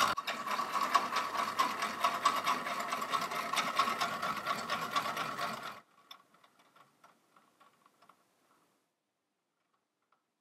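Clockwork drive of a 1920s–30s tin toy carousel running fast, a dense whirr of rapid gear ticking. About six seconds in it drops suddenly to faint ticking, which dies away a few seconds later.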